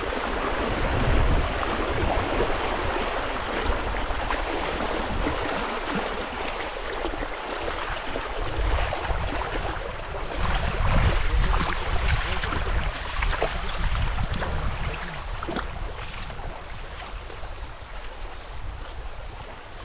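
Steady rush of flowing river water, with wind buffeting the microphone in an uneven low rumble.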